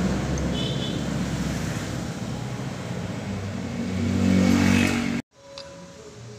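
A motor vehicle engine running, a steady noisy drone that swells about four seconds in and then cuts off abruptly just after five seconds.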